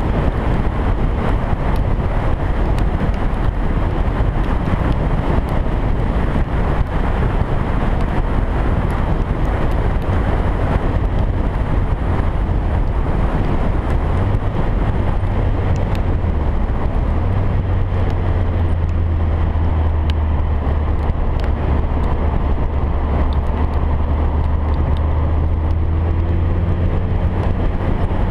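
Onboard sound of a car lapping a race circuit: the engine runs steadily at speed under loud wind rush on the microphone. A steady low engine tone comes up strongly about halfway through.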